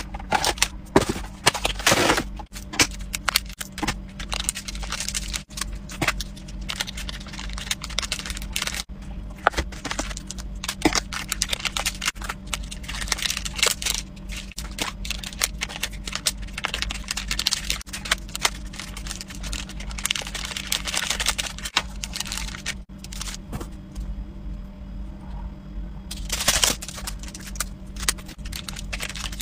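Foil stick sachets crinkling and being snipped open with scissors, their powder shaken out into a plastic tray: a busy, irregular run of sharp clicks, snips and crackling rustles.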